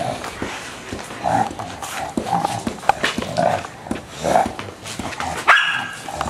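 English bulldog giving short barks and grunts about once a second while playing with a torn ball, with clicks and scrapes from the ball and its claws on concrete. A sharp, louder high-pitched sound comes near the end.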